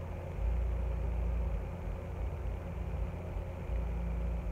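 Low, steady hum.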